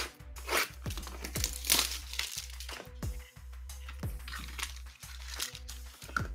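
Packaging on a trading card box being crinkled and torn open by hand: a series of short crinkles and rips as the box is unwrapped.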